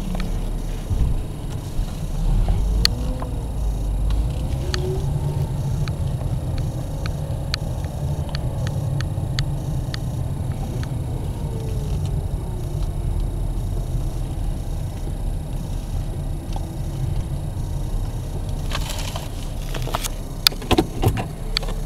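A car driving slowly, heard from inside the cabin: a steady low engine and road rumble, with scattered light clicks and a few sharper knocks near the end.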